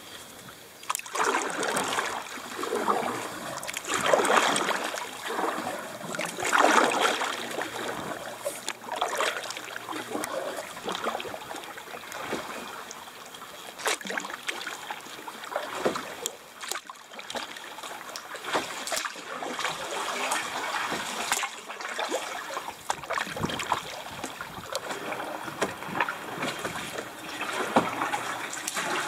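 Paddle strokes in calm canal water from an Old Town Saranac 146 canoe under way: a splashing swell every two seconds or so, with water trickling and dripping in between.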